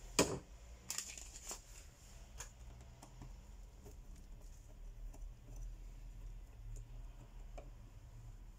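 Small clicks and taps of a precision screwdriver and fingers handling an opened smartphone while its screws are taken out: a sharp click about a quarter second in, a few more over the next two seconds, then faint scattered handling sounds.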